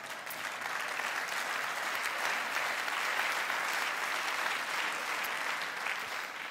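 Large theatre audience applauding after a punchline, building up, at its fullest in the middle and easing off near the end.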